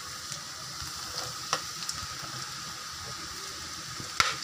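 Spiced onion, potato and carrot mixture frying in hot oil in a pan, a steady sizzle. There are two sharp clicks against the pan, about a second and a half in and near the end.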